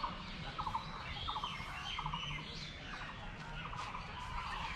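Birds calling in the trees: a short chattering call repeated about twice a second, with higher chirps scattered among it.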